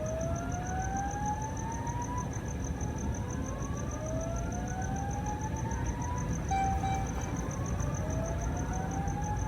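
Fire alarm sounding a slow whoop: a tone that rises in pitch over about two and a half seconds and repeats about every four seconds. Under it runs a fast, steady, high-pitched pulsing beep.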